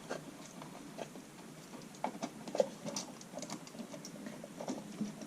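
Scattered light clicks and taps of a wall outlet and its wires being handled and pushed back into the junction box, with a few sharper clicks about two to three and a half seconds in.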